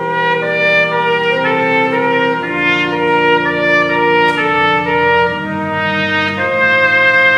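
Trumpet playing a slow melody of held notes over sustained chords from a church pipe organ.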